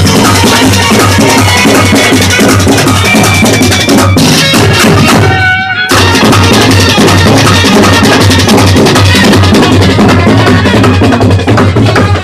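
Loud festival procession band music driven by fast, dense drumming. The drumming breaks off briefly about five seconds in, with a short held note, then comes back in full.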